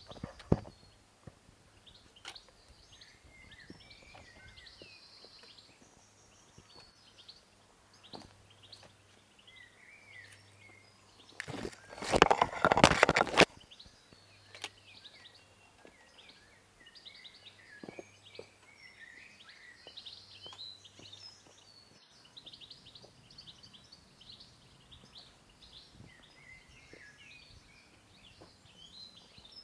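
Small birds chirping and singing, with scattered sharp taps of boots and a trekking pole on rock. About twelve seconds in, a loud scraping rustle close to the microphone lasts nearly two seconds.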